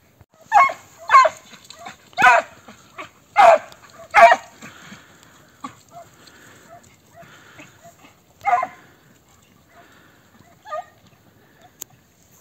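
A hunting dog on a hare hunt barks loudly in short yelping calls: five in quick succession over the first four seconds or so, one more a few seconds later, and a fainter one near the end.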